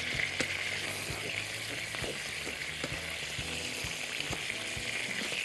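Pieces of cow's trotters sizzling steadily in ghee in a frying pan as they are lightly browned, with scattered sharp clicks of tongs against the pan as the pieces are turned.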